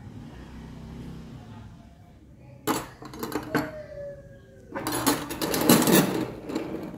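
Stainless steel spoons clinking against each other on a wooden table as they are handled and gathered together. A few light clinks come about three seconds in, then a louder run of clattering near the end as the spoons are pushed into a pile.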